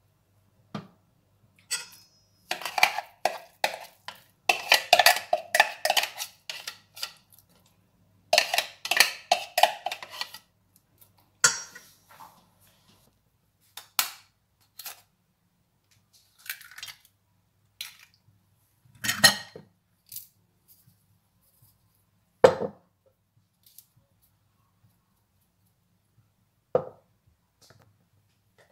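Kitchenware clinking and scraping against a stainless steel mixing bowl as a thick chicken and shrimp paste is emptied into it: dense runs of quick clicks in the first third, then scattered single clicks and a few sharp knocks later on.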